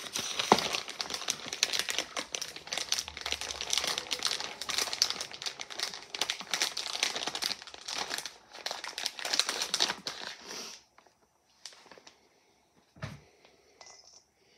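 Plastic bag of mozzarella crinkling continuously as it is handled and the cheese is poured out, stopping about eleven seconds in; a few soft knocks follow.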